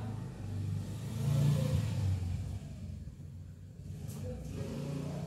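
A low rumble that swells about a second and a half in and again near the end.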